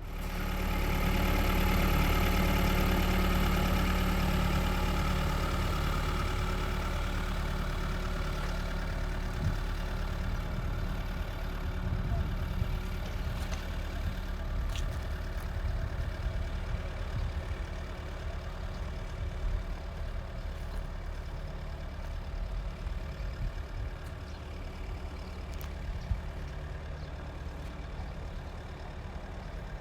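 A heavy engine, as on site machinery, running steadily with a low drone. It is loudest in the first few seconds and then eases slowly, with a few sharp knocks along the way.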